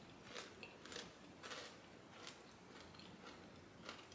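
Faint crunching of a person chewing a crunchy snack mix of corn, peanuts, green peas and fava beans with the mouth closed: soft, sharp crunches about once every second or so.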